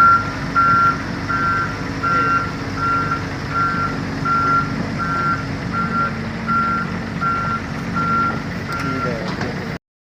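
Heavy machine's reversing alarm beeping steadily about twice a second over its diesel engine running. The beeping stops shortly before the sound cuts off abruptly near the end.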